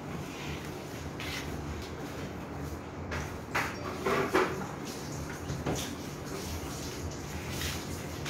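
Occasional knocks and clatter of kitchen things being handled, over a steady low hum.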